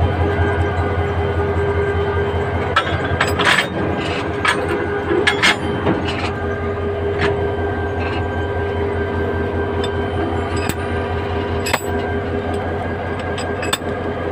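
Meter-gauge diesel locomotive idling with a steady low hum and a held tone, while sharp metal clanks and clinks sound every second or so as the knuckle coupler is worked by hand to join the locomotive to the coaches.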